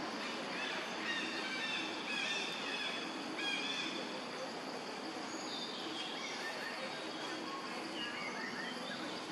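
Outdoor ambience: a steady background hiss with two spells of short, high birds' chirps, the first in the opening seconds and the second from about halfway to near the end.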